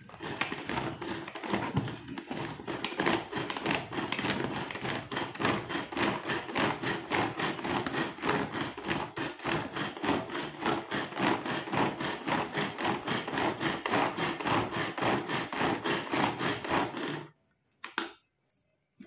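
Manual pull-cord vegetable chopper chopping tomatoes: its blades spin and clatter inside the plastic bowl with each rapid pull, about three strokes a second, until it stops suddenly near the end.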